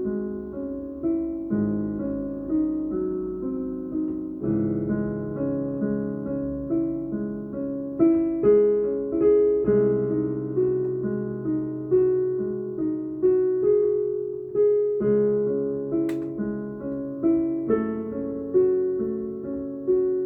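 Piano playing slow, repeating broken-chord phrases, each note struck and ringing away. A single sharp click sounds about three-quarters of the way through.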